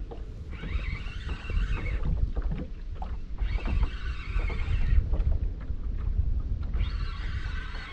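Spinning fishing reel whirring in three bursts of a second or two, line moving through it while the bent rod plays a hooked fish. Wind rumbles on the microphone underneath.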